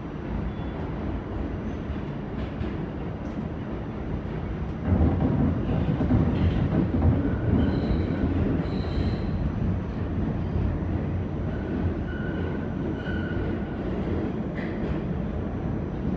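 R46 subway car running through a tunnel, heard from inside the car: a steady rumble of wheels and motors that grows louder about five seconds in. Two short, high wheel squeals come through in the middle.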